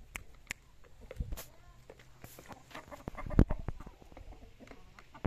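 Chickens and a dog scuffling around food: scattered taps and scuffs with faint clucking, and one louder thump about three and a half seconds in.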